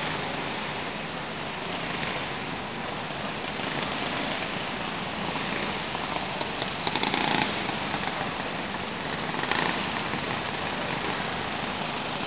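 Kid karts' small engines running as the karts race, heard as a steady, blended drone with a short patch of clatter about halfway through.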